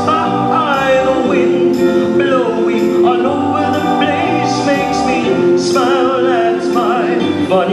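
A song sung by voices over backing music, with long held and sliding notes.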